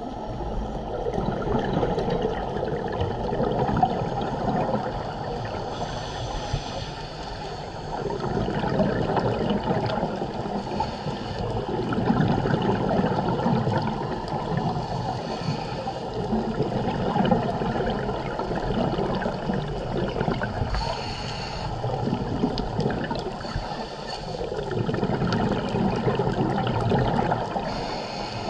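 Scuba breathing heard underwater through a camera housing: gurgling, bubbling exhalations from a regulator over a dense rush of water noise, swelling and fading every few seconds.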